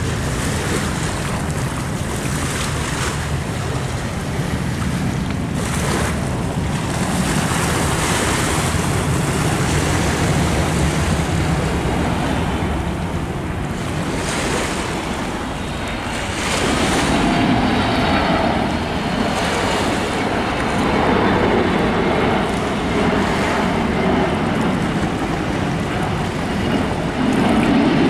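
Wind rushing and buffeting on the microphone; about two-thirds of the way in, the jet engines of a Boeing 777 on final approach become audible over it as a louder rumble with a faint, slowly gliding engine whine.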